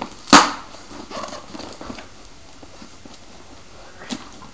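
A taped cardboard box being pulled open by hand, without a cutter. There is one sharp, loud rip or knock about a third of a second in, then faint rustling and scraping of the cardboard, and a short click near the end.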